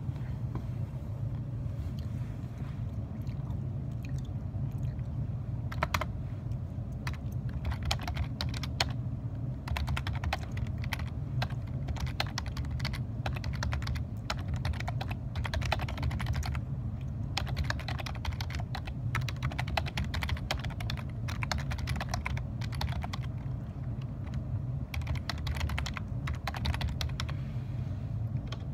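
Typing on a computer keyboard: rapid runs of key clicks in spurts with short pauses, over a steady low hum.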